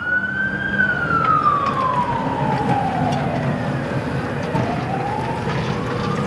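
A siren wailing slowly up and down in pitch. It peaks under a second in, falls for about two and a half seconds, then climbs again in the second half, over a low rumble.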